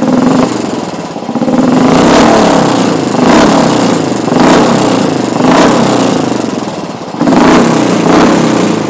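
Royal Enfield Bullet's single-cylinder engine revved through an original Red Rooster aftermarket silencer: a series of throttle blips, roughly one a second, each swelling up and dying back.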